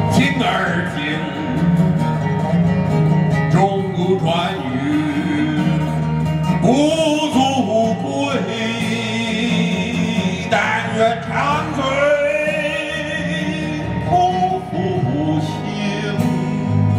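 A man singing in phrases over a fingerpicked acoustic guitar, which keeps playing between the sung lines.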